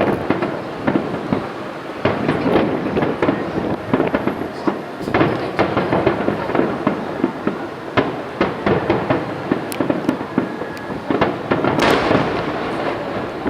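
Aerial fireworks going off in quick succession: a dense string of bangs and crackles, with a louder cluster of bursts near the end.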